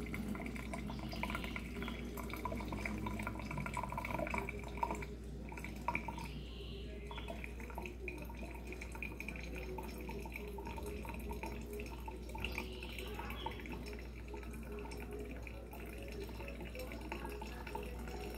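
Brewed coffee trickling and dripping from a cloth coffee filter into a thermos jug as hot water is poured into the filter from a pan. There are a couple of light knocks about five seconds in.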